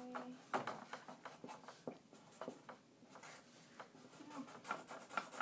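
Pen or pencil strokes drawing on paper: a quiet, irregular run of short scratchy strokes.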